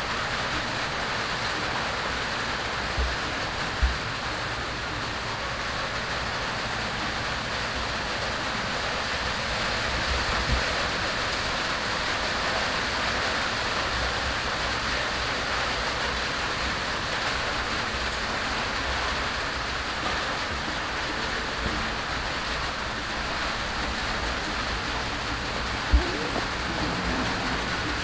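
Steady heavy rain hissing on a corrugated metal roof. A few dull low thumps come through, the clearest about four seconds in and near the end.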